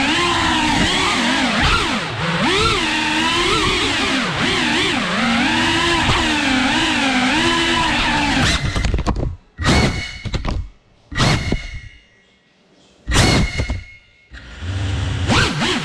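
FPV quadcopter's brushless motors whining, the pitch wavering up and down with the throttle. A little past halfway the whine breaks into a few short sharp bursts with near-silent gaps between them, then the steady whine returns near the end.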